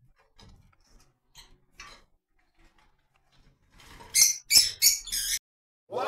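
Rosy-faced lovebirds chirping: scattered faint chirps and clicks, then a quick run of four or five loud, sharp, high chirps about four seconds in.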